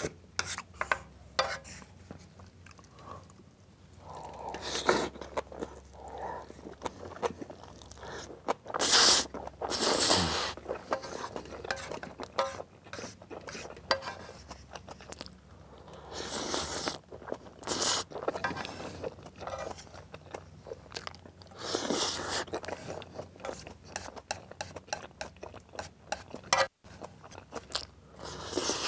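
Close-miked eating: chewing and crunching of spicy black-bean instant noodles with green onion kimchi and fried egg, with many small mouth and chopstick clicks and several louder slurps of noodles. Chopsticks stir and scrape the last noodles in the metal pan.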